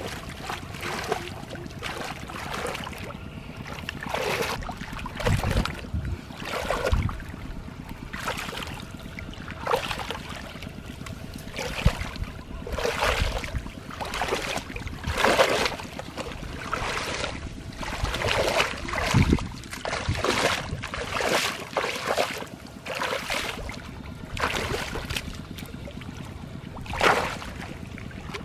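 Shallow muddy water splashing and sloshing in irregular bursts as a person wades through it and gropes with both hands in the mud beneath.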